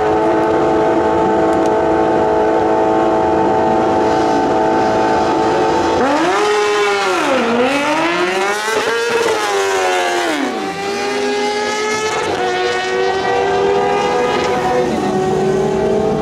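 Two drag-racing sport motorcycles held at steady high revs on the start line, then launching about six seconds in: the engine pitch climbs and drops back with each upshift as they accelerate down the strip.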